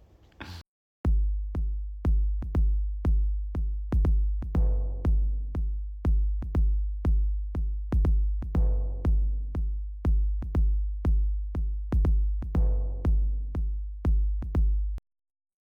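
Electronic music with a steady drum-machine kick at about two beats a second over a deep bass, starting about a second in and cutting off abruptly near the end.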